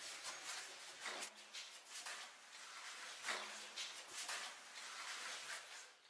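Footsteps scuffing and scraping on the rock floor of a narrow cave passage: irregular steps, with louder scrapes about a second in and just after three seconds in.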